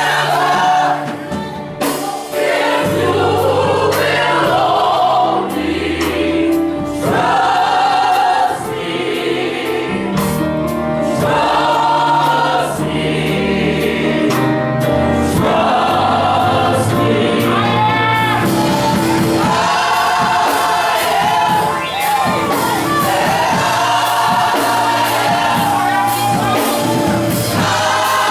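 Gospel choir singing in full voice, accompanied by keyboard and percussion.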